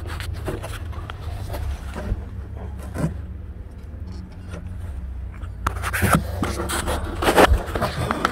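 Scattered clicks and scrapes of hands and tools working a metal bracket and plastic cable clips loose in a car's engine bay, over a steady low hum. The scraping and knocking grows loud and busy about six seconds in, as the bracket is worked free.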